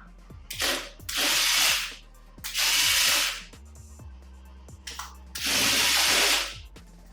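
Remote-controlled toy JCB's small electric motors and plastic gears whirring and ratcheting in three bursts of about a second each, with background music.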